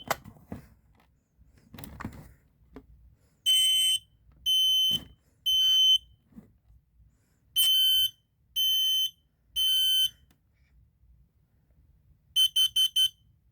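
Kidde P3010K-CO combination smoke and carbon monoxide alarm sounding on test with a high-pitched piezo tone. It gives two rounds of three long beeps, the fire pattern, then four quick beeps near the end, the carbon monoxide pattern.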